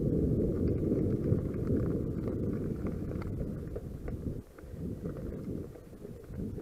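Wind buffeting the microphone of a camera on a moving mountain bike, mixed with the rumble of the tyres on the path and scattered small clicks from gravel. The rumble eases a little past halfway as the bike rolls along the gravel track.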